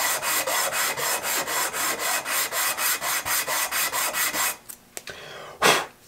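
A small walnut block hand-sanded on 100-grit sandpaper laid over a flat ceramic floor tile: quick, even back-and-forth scraping strokes, about five a second, flattening the face and taking off saw-blade marks. The strokes stop about four and a half seconds in, and a single knock follows near the end.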